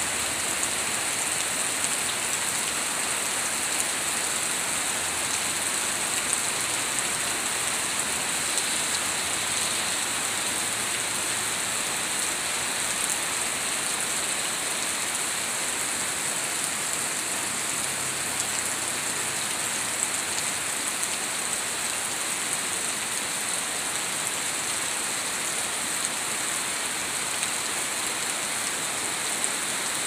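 Heavy rain pouring steadily, a dense even hiss of falling water.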